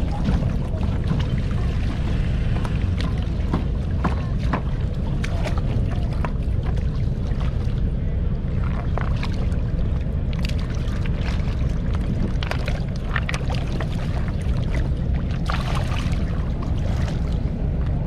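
Steady low rumble of a boat engine on the river, with stones clacking and water splashing as rocks are lifted and turned over in the shallows.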